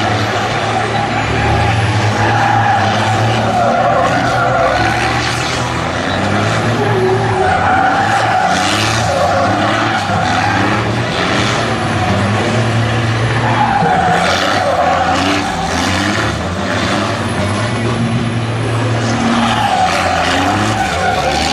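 Show trucks drifting: heavy truck engines running hard, rising and falling with the throttle, while the tyres skid. A thin high whistle glides up and down over them.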